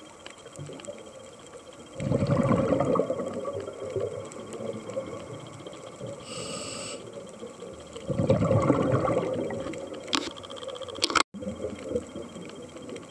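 Underwater sound of a scuba diver breathing through a regulator: two gurgling rumbles of exhaled bubbles, about two and eight seconds in, with a faint hiss of inhalation between them.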